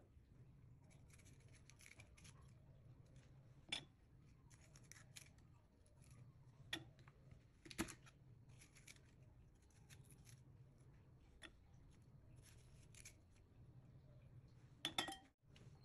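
Chef's knife cutting a yellow bell pepper on a wooden cutting board: faint crisp slicing and scraping, with a handful of sharper knocks of the blade on the board.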